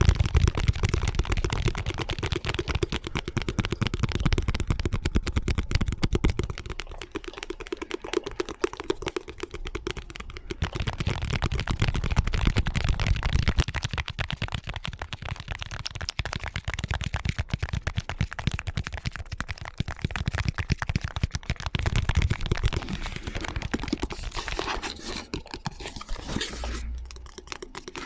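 ASMR tapping: fast, dense taps on hard objects, with several tapping recordings layered over one another. The texture changes every few seconds as one tapping sequence fades into the next.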